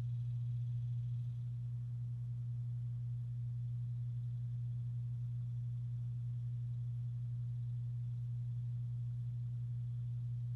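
Steady low electrical hum: a single deep, unchanging tone over a faint buzz.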